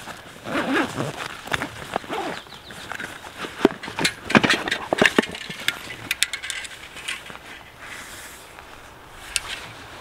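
Hands rummaging through a nylon backpack: fabric rustling with irregular clicks and knocks of gear being handled, busiest about halfway through and settling down near the end.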